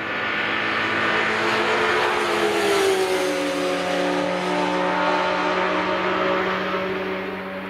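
BMW S1000 RR's inline-four engine running hard as the bike goes by. It swells to its loudest about three seconds in, drops in pitch as it passes, then fades away.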